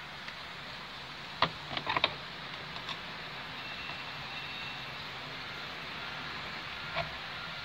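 Toyota Avanza steering wheel being turned back and forth by hand to test it, with no crackling from the steering column: the rubbing noise has been cured. A few sharp clicks about a second and a half to two seconds in, and one more near the end.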